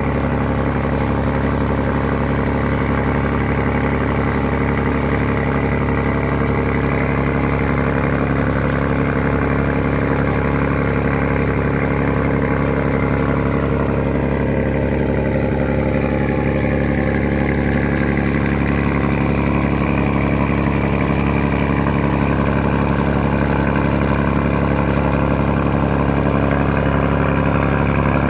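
Ferry's diesel engine running at a steady, unchanging speed, a loud continuous drone with a faint sliding tone partway through.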